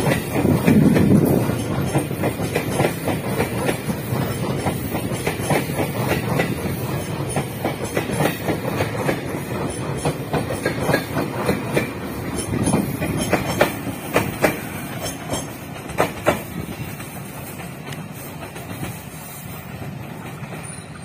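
Electric commuter train running past on the adjacent track, its wheels clacking over rail joints above a low rumble. The clatter is loudest about a second in and fades over the last few seconds as the train draws away.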